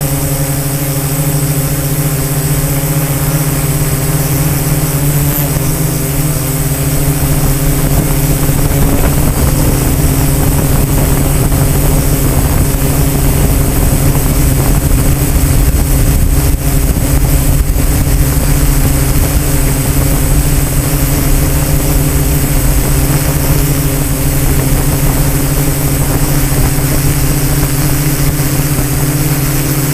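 Small multirotor drone's motors and propellers humming steadily, picked up by its own onboard camera, with a low rumble of air buffeting underneath; the pitch shifts slightly now and then.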